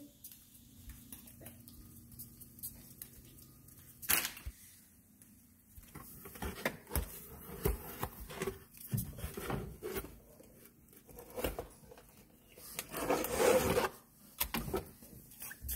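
A small child's hands rummaging in cardboard boxes of crinkly packets: scattered rustling, tapping and knocking, with a sharp knock about four seconds in and a longer, louder crinkling rustle near the end.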